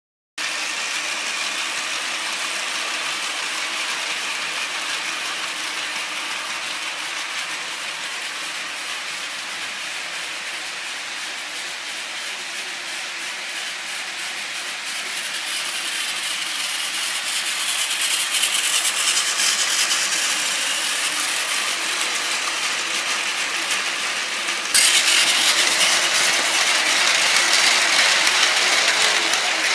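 Battery-powered Plarail toy train running on plastic track: its small motor and gearbox whirring, with the wheels rattling over the rails. The sound grows louder past the middle and jumps suddenly louder about five seconds before the end.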